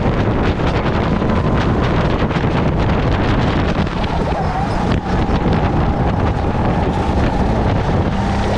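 Heavy wind buffeting on an onboard microphone over a racing kart's engine running at speed, a dense and steady noise with a faint steady whine.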